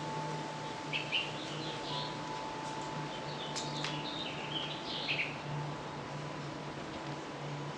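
Small birds chirping in short runs of high calls, about a second in and again from about three and a half to five seconds in, with a sharp click among them. A faint steady low hum runs underneath.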